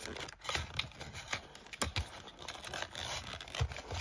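Hands handling a cardboard earbud box and its insert: light rustling and scraping with scattered small clicks and taps, a couple of them sharper about two seconds in.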